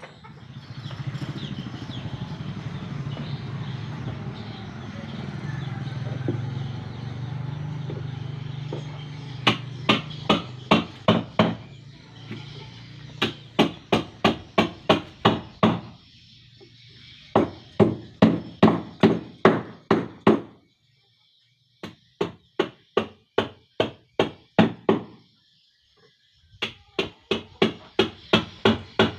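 Hammer blows on wood, struck about three to four times a second in runs of seven to ten with short pauses, as in nailing or driving planks on a wooden boat hull. A steady low drone fills the first nine seconds or so before the hammering starts.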